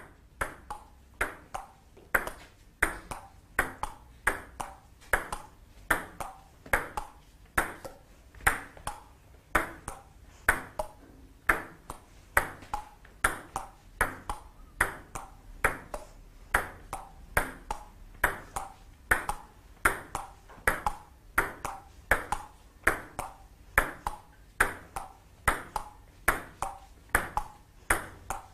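Table-tennis ball clicking back and forth in a steady, unbroken rally, alternating between paddle hits and bounces on the table at a little over two clicks a second.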